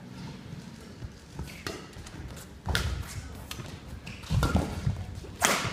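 Scattered thumps and taps of players' steps on a badminton court, with a sharp crack of a racket hitting a shuttlecock near the end.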